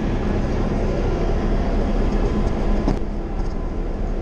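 Diesel locomotive's engine idling: a steady low rumble with a constant hum.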